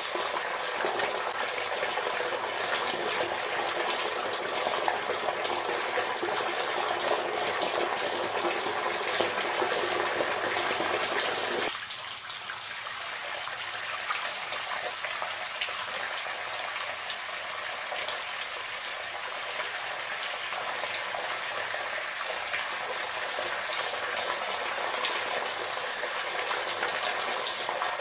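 Running water gushing steadily, like a tap or shower left on. About twelve seconds in it abruptly turns thinner and lighter, losing its fuller low part, and keeps running.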